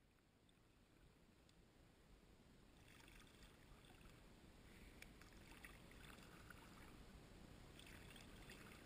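Faint kayak paddle strokes in calm creek water: soft swishes with drips and small clicks, about every two and a half seconds from about three seconds in, over a low steady rumble. The sound rises gradually from near silence at the start.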